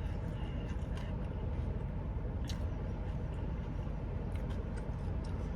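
Steady low background rumble, with a few faint soft clicks about half a second, one, two and a half and four and a half seconds in.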